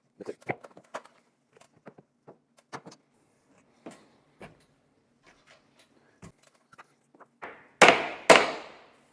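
Wooden sauna wall frame being handled and lifted: scattered light knocks and clicks of wood, then two loud heavy wooden thuds a half-second apart near the end.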